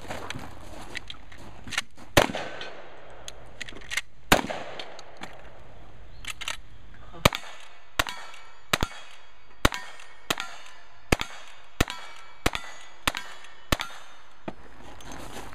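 Lever-action rifle shots: a few at first, then a steady string of about ten shots roughly 0.7 s apart, worked as fast as the lever cycles. Some shots are followed by the brief ring of a steel target being hit.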